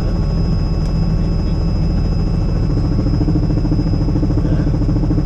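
Robinson R66 helicopter in flight, heard from inside the cabin: its turboshaft engine and rotors run with a steady low drone and a thin, steady high whine. A low hum grows a little stronger about halfway through.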